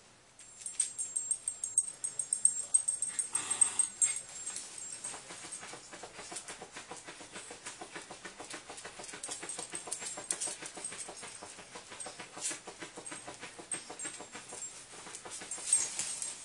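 Havanese dog pawing and scratching rapidly under a bed to get at a bone: a fast, continuous run of short scratches, loudest in the first few seconds.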